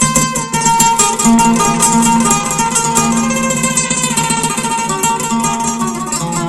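Oud played with a pick: a fast run of plucked notes over a sustained melody, with no added effects.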